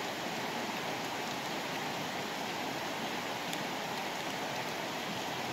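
Shallow rocky stream rushing over stones: a steady, even water noise that holds without change.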